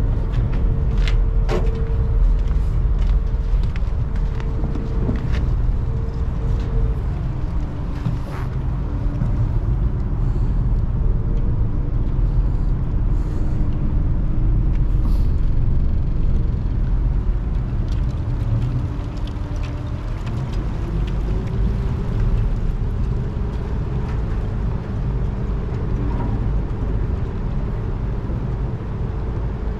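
Ferry's engine running with a deep, steady rumble. Its drone drops in pitch about seven seconds in and rises again about twenty-one seconds in, with a few sharp knocks in the first couple of seconds.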